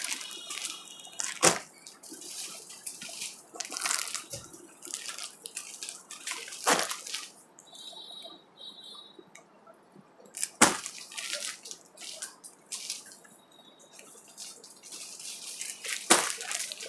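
Clear plastic packaging on bundled clothing packs crinkling and rustling as the packs are handled, with four sharper knocks among the crackle.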